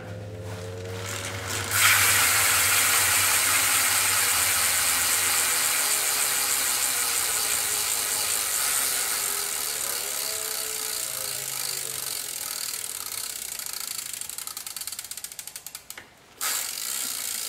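Loud Dachang cassette hub on a BMX rear wheel freewheeling, its pawls clicking rapidly and loudly. The clicking starts about two seconds in and slowly fades as the wheel slows, stops briefly near the end, then starts again.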